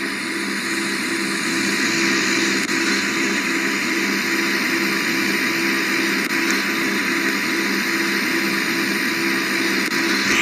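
Noisy air conditioner running steadily: an even rushing hiss of moving air, with a low hum underneath that pulses rapidly.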